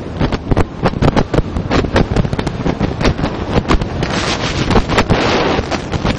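Wind buffeting the microphone of a phone in a vehicle moving at highway speed, in irregular rapid gusts over a steady low rumble of the ride.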